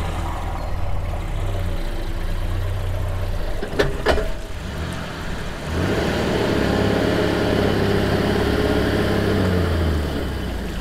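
Engine of a manual-transmission pickup truck running as it hauls a boat on its trailer up a wet launch ramp, with two sharp knocks a little under four seconds in. About six seconds in the engine gets louder as it pulls under load, then eases back near the end, sounding like a truck with a few problems.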